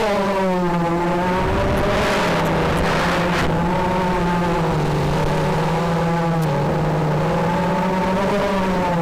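FPV racing quadcopter's brushless motors and propellers whining, the pitch rising and falling with the throttle. A brief rush of wind noise comes about two to three seconds in.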